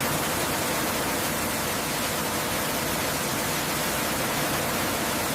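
Steady rushing hiss that starts abruptly and holds at an even level, with no tones or separate strikes in it.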